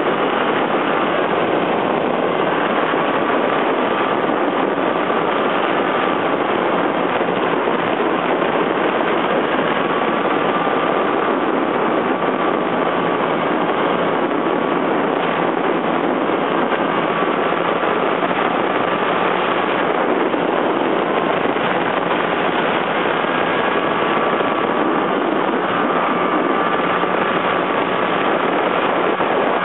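Snowmobile running at a steady speed along a snow trail, its engine noise and the rush of the ride holding an even level throughout. A faint whine drifts slightly up and down in pitch.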